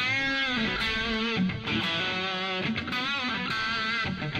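Ibanez RGAT62 electric guitar played through a Boss Katana 100 amp on its heavy patch with the Tube Screamer booster switched off: a super crunchy distorted tone. Held notes with wavy vibrato and chords ring out, with a few short stops between phrases.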